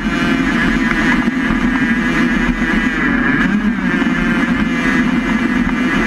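Steady rumble of a small, low-slung vehicle travelling at speed along a tarmac road, picked up by a camera mounted on its body.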